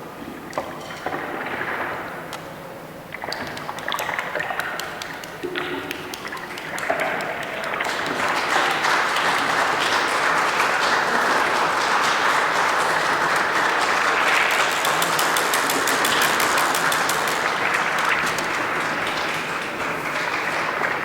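Many people in a participatory orchestra clapping and snapping, scattered at first, then thickening about seven seconds in into a dense, steady patter of claps and snaps.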